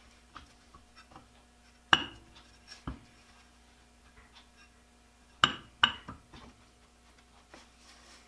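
Steel parts of a Skinner Junior three-jaw lathe chuck clinking against each other as they are handled and fitted together: a sharp ringing clink about two seconds in, a duller knock a second later, then two more clinks in quick succession past the middle, with light handling noise between.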